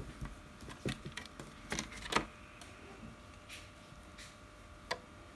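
Scattered light clicks and taps from handling a dish soap bottle and small pieces, the loudest about two seconds in, with a couple of faint brushing sounds.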